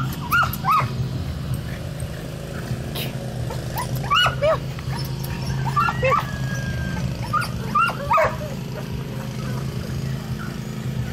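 Small dogs barking at a cat in short clusters of sharp barks, two or three at a time, with pauses between, over a low steady hum.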